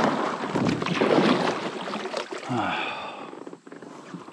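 Kayak paddle strokes splashing through water thick with lily pads. About two and a half seconds in comes a brief squeal that slides down in pitch, then the splashing eases off.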